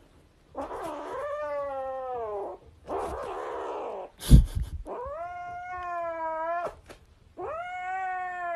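A domestic cat yowling in three long, drawn-out, wavering calls. A sharp knock comes a little over four seconds in.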